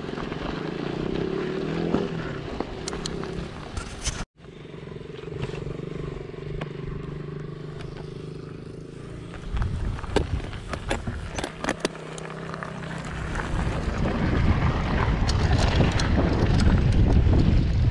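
Mountain bike riding down a dirt trail: wind buffeting the handlebar camera's microphone and tyre rumble, building up over the last few seconds, with scattered knocks and rattles from the bike. Before that, a steady low hum, cut off for a moment about four seconds in.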